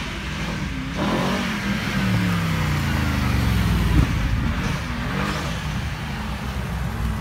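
Mercedes-Benz SLS AMG Black Series V8 driving past at low speed, its engine note falling as it goes by, followed by the twin-turbo V8 of a Mercedes-AMG GT R approaching and revving. A single sharp pop about four seconds in.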